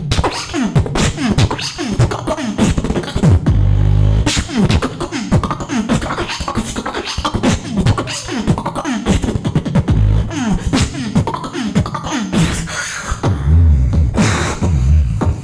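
A solo beatboxer performing live: sharp drum-like hits mixed with many quick downward-sliding vocal sweeps, with deep bass sounds at about four seconds and again from near the end.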